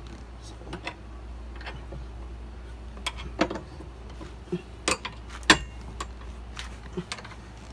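Combination wrench clicking and clinking against the harness bar's floor-mount bolt as it is turned and reset on the bolt head: a handful of sharp ticks at irregular intervals, the loudest two about five seconds in.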